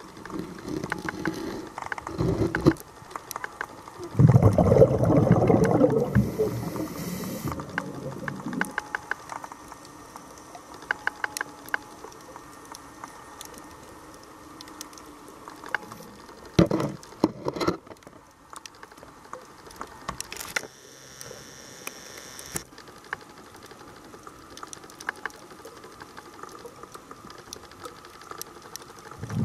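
Underwater audio from a camera in its housing: a diver's exhaled regulator bubbles gurgle in a loud burst about four seconds in that lasts several seconds, with shorter bursts near the start and about halfway through. Scattered sharp clicks crackle throughout.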